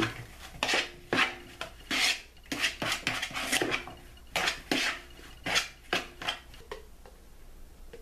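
Metal spoon stirring chopped hard-boiled eggs in a mixing bowl, scraping and clinking against the bowl in uneven strokes. The strokes stop about a second before the end.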